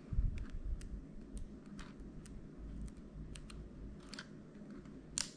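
Quiet, scattered small clicks and ticks of thin metal pry tools working under an M1 MacBook Air's delete key to free its clips, with a low handling thump at the start and a sharper click just before the end.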